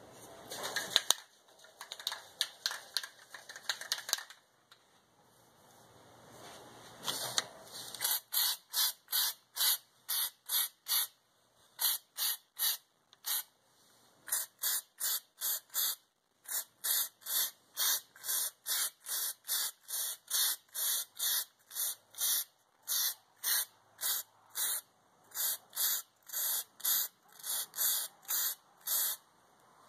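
Aerosol can of spray-on bed liner hissing in short, rapid bursts, about two a second, as the nozzle is pressed and released over and over, with one short pause midway. Irregular clattering noise fills the first few seconds before the bursts begin.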